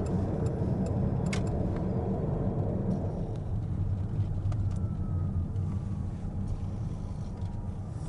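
Mitsubishi Outlander PHEV driving: steady low road and tyre rumble with a few faint clicks, easing slightly toward the end.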